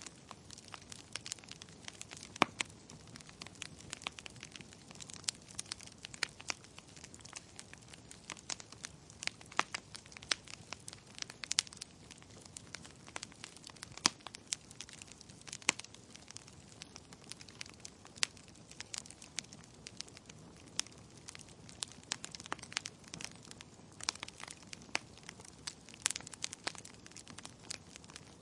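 Wood fire burning in a fireplace: irregular sharp pops and snaps of burning logs, several a second and of varying strength, over a soft, steady low rush of flame.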